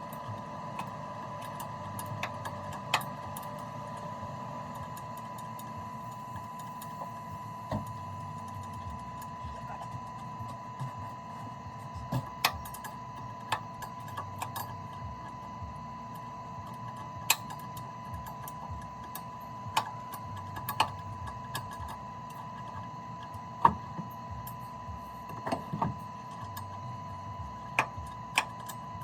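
Scattered sharp clicks and knocks of hand tools and parts on metal at irregular intervals, over a steady high-pitched whine and a low hum.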